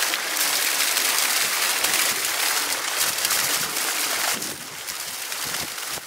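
Small geyser spouting and splashing water that runs down the face of a mineral mound: a steady rushing hiss, somewhat quieter from about four and a half seconds in.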